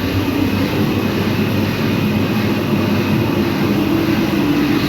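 Steady low machine drone with a constant hum, running evenly throughout.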